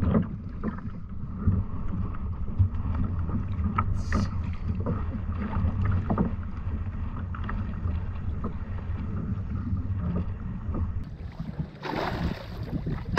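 Wind buffeting the microphone on a kayak at sea, with small water slaps and knocks against the hull while a fish is played on the rod. Near the end there is a louder splash at the surface beside the kayak.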